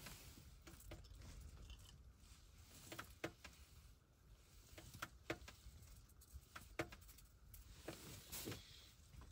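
Near silence inside an ice-fishing tent: a low rumble with a scattering of faint clicks and rustles.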